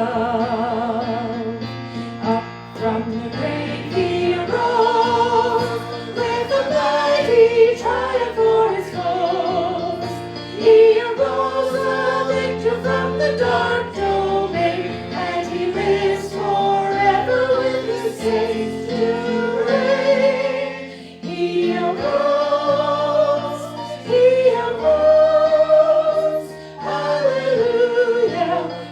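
Church worship music: a choir singing with vibrato over sustained instrumental accompaniment.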